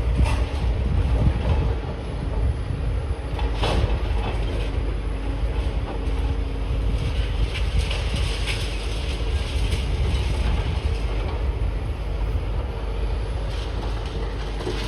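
Demolition excavators' diesel engines running steadily with a low rumble and engine hum, with a couple of sharp metallic knocks, one just after the start and one about four seconds in.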